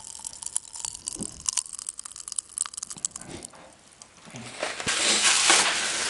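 Paper packaging crinkling and rustling as hands dig through a gift box: scattered sharp crackles at first, then a louder, steady rustle from about halfway through.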